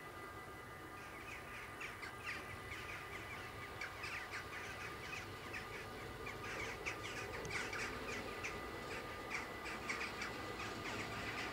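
Birds calling, many short crow-like calls in quick succession, over a faint steady high tone and a low rumble.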